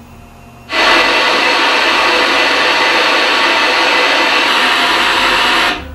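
Loud hiss of static from an old CRT television that has lost its signal. It starts abruptly under a second in and cuts off suddenly near the end.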